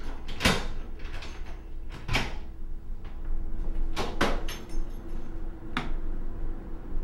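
Sharp, irregular knocks and bangs at an apartment door, about five hits, two in quick succession about four seconds in, over a faint steady hum.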